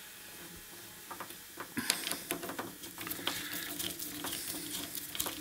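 Small irregular clicks and metallic ticks of a hose clamp being fitted and tightened with a screwdriver on a rubber fuel hose at a carburettor, starting about two seconds in.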